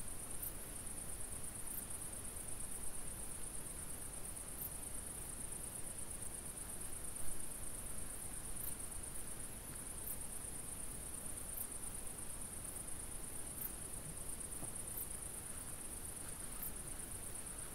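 Crickets chirring in a steady, high-pitched trill, with a short higher chirp every second or two, over a faint hiss. One brief knock sounds about seven seconds in.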